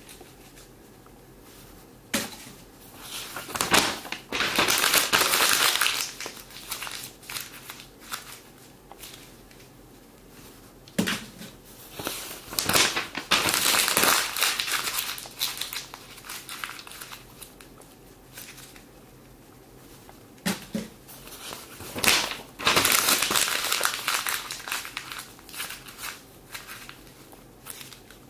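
Paper crumpling and rustling in three long bouts of a few seconds each, with scattered taps and clicks between.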